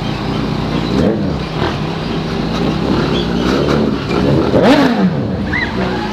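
Vehicle engine revving over a steady idle, its pitch rising and falling several times, the biggest rev a little under five seconds in.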